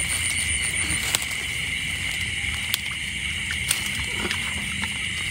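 Water sloshing and a few light knocks, over a steady high chirring of insects.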